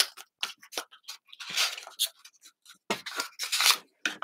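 Small cardboard boxes for Framework laptop expansion cards being handled on a table: a string of short scrapes, rubs and taps, busiest about three seconds in.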